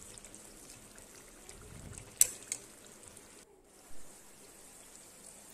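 Steel ladle stirring jackfruit curry in an aluminium kadhai, with two sharp metal clinks about two seconds in, over a faint steady hiss. The sound drops out briefly past the middle.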